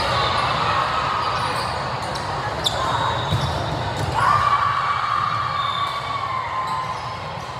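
Indoor volleyball rally in an echoing gym with steady crowd chatter: a sharp smack of the ball being hit about two and a half seconds in, then from about four seconds in a loud, drawn-out shout that slowly falls away as the point ends.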